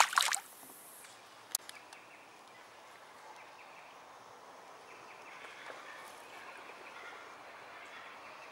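A short, sharp splash as a small Australian bass is let go into the water, then a single small knock. After that only a faint outdoor background of birds and insects.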